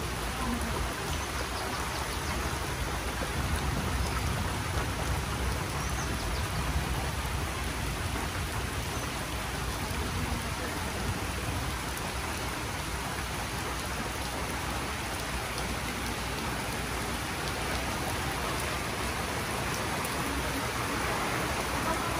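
Steady rain falling on trees, grass and puddled ground.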